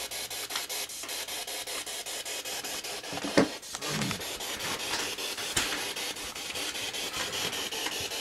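P-SB7 spirit box sweeping through radio stations: a steady static hiss chopped into an even, rapid pulse several times a second, with a brief louder burst a little over three seconds in.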